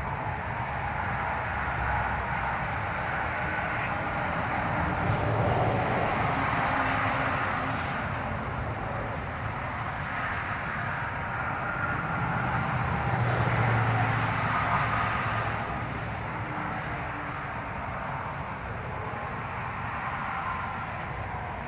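Road traffic noise, a steady rumble that swells twice and eases off as vehicles pass.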